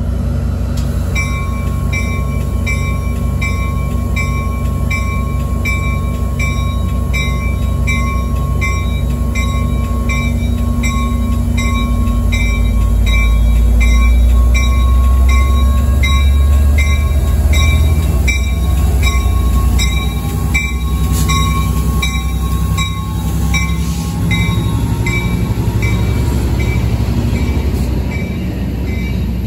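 Amtrak San Joaquins passenger train pulling in: the diesel locomotive's deep rumble swells as it passes about halfway through, then the coaches roll by on the rails. A bell rings steadily, about one and a half strikes a second, and stops near the end.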